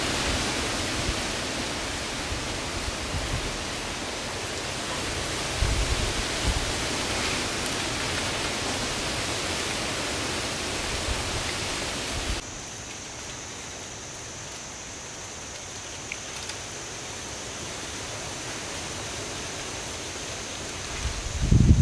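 Steady outdoor hiss with no clear source, dropping in level about halfway through. A few soft low thumps come from hands working spice marinade into a raw chicken in a clay bowl, the strongest near the end.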